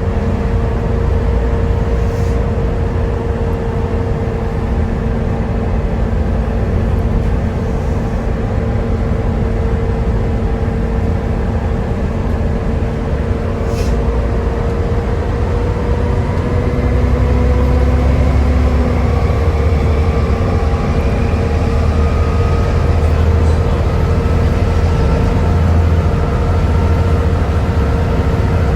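Volvo B7TL double-decker bus heard on board: its D7C six-cylinder diesel and driveline running with a steady low rumble and a vacuum-cleaner-like 'hoovering' whine. About halfway through, the rumble grows louder and the whine climbs in pitch as the bus pulls harder.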